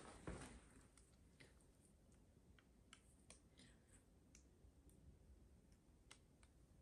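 Near silence: faint room tone with a scattered handful of faint, small clicks.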